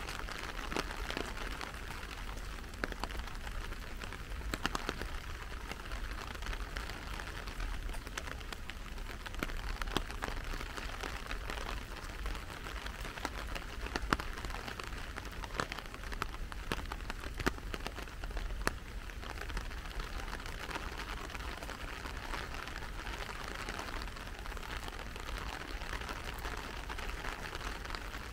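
Steady rain falling, a continuous hiss dotted with many sharper individual drop taps, over a low rumble.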